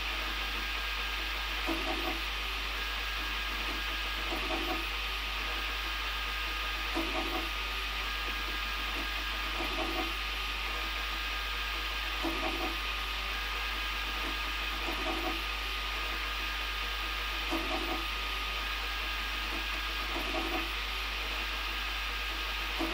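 Prusa i3 Mk2 3D printer running a print, its stepper motors driving the print head around each layer. A short louder burst of motor noise repeats about every two and a half seconds over a steady hiss and low hum.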